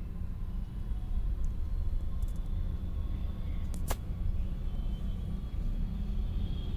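Steady low background rumble, with one sharp click about four seconds in.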